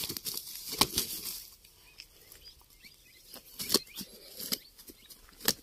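A landed snakehead thrashing on grass as it is handled: irregular sharp slaps and thumps with rustling of the grass, loudest about a second in and again near four seconds.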